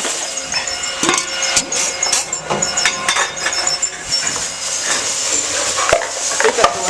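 Empty beverage cans clanking and rattling as they are handled and fed into a Tomra T-53 reverse vending machine, a quick run of irregular knocks and clatters.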